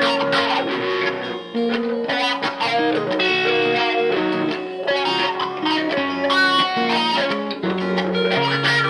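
Electric guitar being played, a steady run of picked notes that change pitch every fraction of a second.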